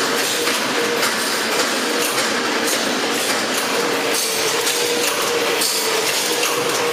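Horizontal form-fill-seal stand-up pouch packing machine running: a steady mechanical clatter of many small knocks and clicks, with a steady tone underneath.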